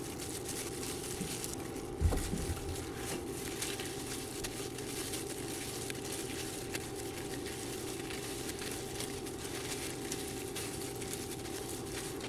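A steady low hum with a faint high tone, a soft knock about two seconds in, and faint scattered clicks from gloved hands peeling and handling boiled potato and eggs.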